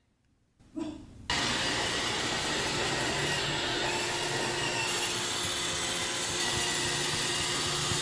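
Roomba 780 robot vacuum running on carpet: a steady whir of its vacuum motor and brushes with a constant low hum, starting abruptly about a second in.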